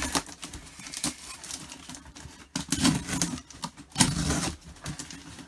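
A shipping box and its packing being opened by hand: rustling and scraping with irregular sharp knocks and clicks.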